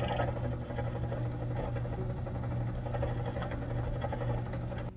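Drill press running with a steady motor hum while its bit cuts a hole through a small block of wood, with a rough cutting noise over the hum. The sound cuts off suddenly just before the end.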